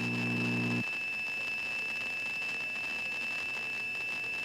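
Steady high-pitched tone on a radio broadcast's emergency alert audio, with a low buzzing hum under it that cuts off just under a second in.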